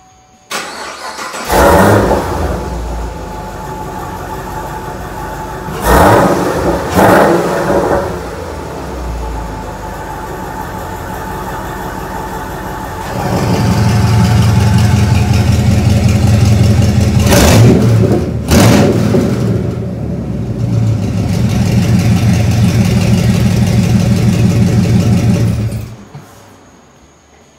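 Camaro SS 6.2-litre V8 idling with sharp throttle blips through headers and NoWeeds exhaust diverters. About halfway through it turns much louder and deeper, the sign of the diverters opening to dump exhaust straight off the headers, and two more revs follow before it cuts off.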